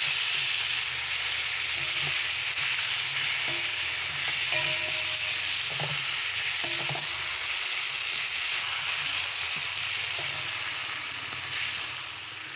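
Fried potato chunks and a thick onion-tomato masala sizzling in hot oil in a metal kadai while a spatula stirs and scrapes the pan now and then. The potatoes are being tossed in the cooked-down masala (kosha). The sizzle eases slightly near the end.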